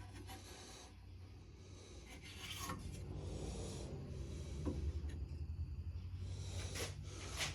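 Faint rubbing and a few light knocks of cut wooden pieces being handled and set on a surface, over a steady low hum.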